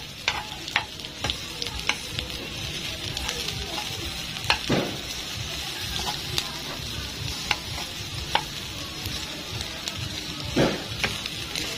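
Garlic sautéing in hot oil in a pan, sizzling steadily, with the scattered clicks and knocks of a utensil stirring it, two of them louder.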